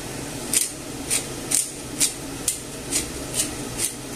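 Black pepper grinder being twisted over a pan, with about two short grinding strokes a second starting about half a second in.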